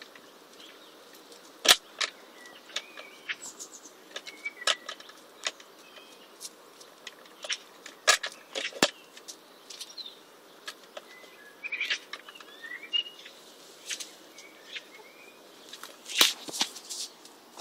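A hen pecking at a cob of sweet corn in a hanging wire treat holder: irregular sharp clicks and taps, a few louder than the rest. Faint short chirps come in here and there.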